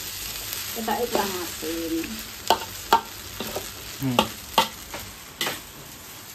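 Fried rice sizzling in a wok as it is stir-fried, with a steady hiss from the frying. The spatula scrapes through the rice and knocks sharply against the pan about five times in the second half.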